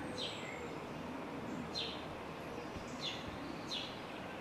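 A bird calling over steady outdoor background hiss: four short chirps that each slide quickly downward, with a thin high whistle near the start.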